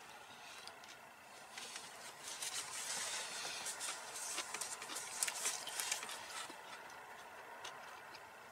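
A man chewing a mouthful of soft taco: quiet, wet mouth sounds with small clicks, a little louder for a few seconds in the middle.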